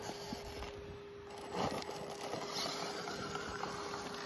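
Electric RC rock crawler creeping over rock: a steady whine from its motor and drivetrain, with its tyres scraping on stone and a louder knock about one and a half seconds in.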